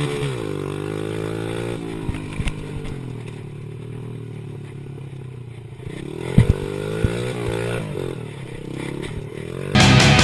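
Honda CRF50 pit bike's small single-cylinder four-stroke engine running as it is ridden, the revs falling off and rising again several times, with a few sharp knocks around two seconds and six and a half seconds in. Loud rock music cuts in near the end.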